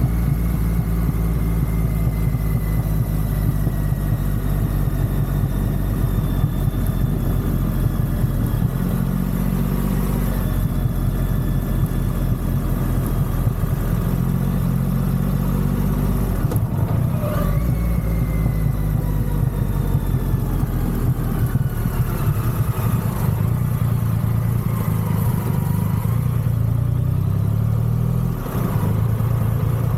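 Triumph Rocket 3's big inline three-cylinder engine running under way, its revs climbing and dropping back several times as it changes through the gears, with a short dip near the end at a shift.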